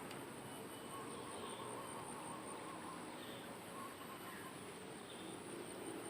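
Insects trilling steadily, a high, pulsing buzz. Faint short calls repeat about once a second over it.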